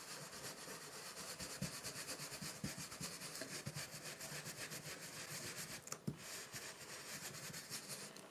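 Ink blending brush scrubbing in quick circles over a metal stencil and cardstock, a faint, even rubbing of several strokes a second, with a light tap about six seconds in.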